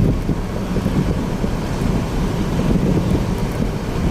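Wind buffeting the microphone: a steady, fluttering low rumble with no distinct tones.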